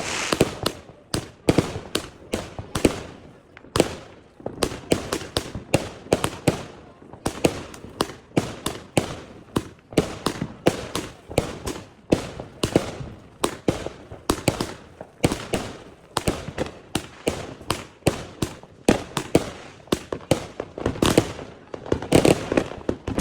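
Fireworks going off in rapid, irregular succession: many sharp bangs, several a second, with crackling between them.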